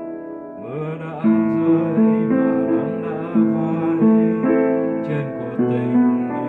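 Piano playing a slow passage: held chords under a melody moving note by note.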